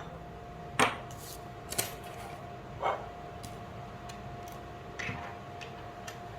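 Light clicks and clinks of small lock parts from a door-lock clutch replacement kit being handled and set down, about eight scattered taps, over a faint steady tone.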